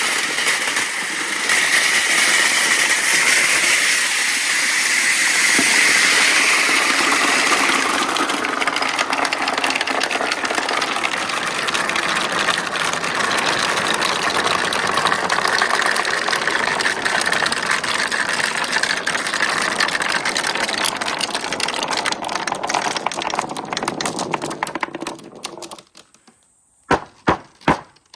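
Marbles rolling and clattering down a marble run track, a dense continuous rattle that stops suddenly about 25 seconds in, followed by a few single sharp clicks.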